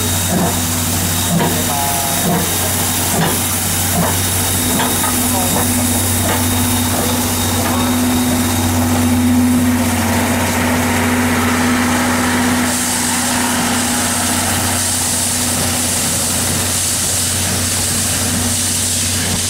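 C11 tank steam locomotive pulling out of a station with its train: a steady low drone throughout, joined about two thirds of the way in by a loud hiss of steam.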